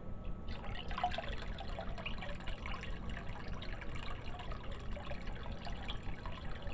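Water trickling and splashing as it drains through a homemade pond sump filter, continuous, over a steady low hum.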